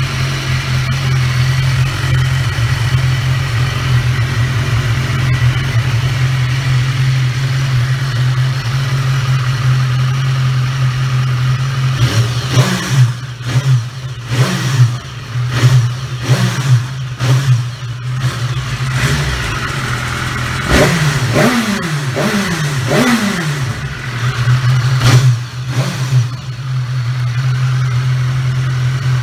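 BMW S1000RR inline-four engine running through an SC Project slip-on exhaust with the dB-killer baffle fitted. It idles steadily at first, then takes a string of sharp throttle blips, each revving up and dropping quickly back, before settling to a steady idle again near the end.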